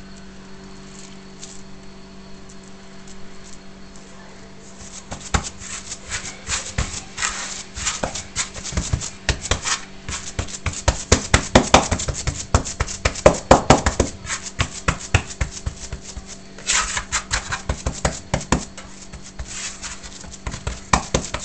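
Hands rubbing, pressing and patting semolina dough against a wooden bowl: a quick, irregular run of slaps and scrapes that starts about five seconds in and is busiest around the middle.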